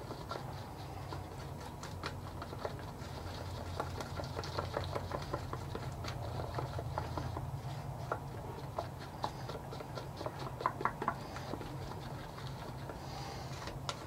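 Two-part epoxy mixed with glitter being stirred with a stick in a small cup: irregular light ticks and scrapes of the stick against the cup, over a steady low hum.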